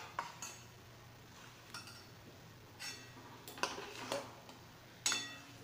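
A metal spoon clinking and scraping lightly against a kadhai in about half a dozen separate knocks, the loudest about five seconds in. This is the skimming of scum off jaggery syrup after milk has been added to bring the impurities up.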